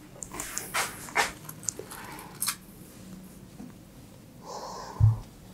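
Cloth rustling and swishing in short strokes as a fabric patch is smoothed and pinned onto a dress skirt by hand, with a dull thump about five seconds in.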